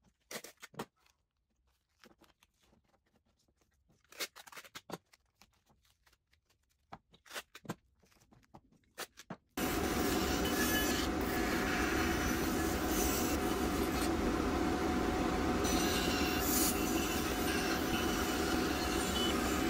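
Light clicks and knocks of a tape roll and wooden blank being handled on a bench. About halfway in, a Harvey C14 bandsaw with a 3/16-inch blade starts abruptly and runs steadily, with a constant whine, while it cuts a taped-together wooden blank.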